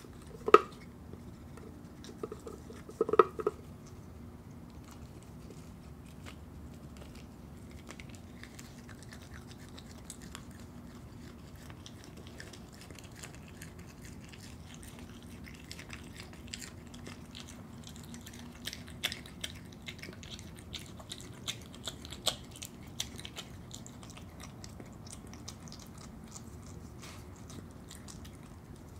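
A Virginia opossum chewing and crunching pieces of an ice cream drumstick, with wet mouth sounds and many small crisp clicks that come thickest past the middle. There are a few louder knocks in the first few seconds.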